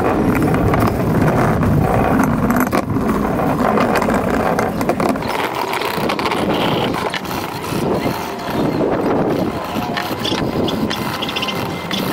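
Continuous rough scrubbing of aluminium alloy suspension control arms with a scouring sponge and sandpaper.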